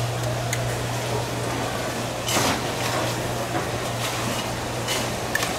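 A steady low hum over background room noise, with a few short hissing sounds a little over two seconds in and again around five seconds in.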